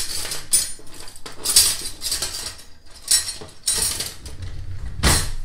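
Metal kitchen knives and cutlery clattering in a run of short bursts as someone rummages for a serrated knife, with a sharper knock about five seconds in.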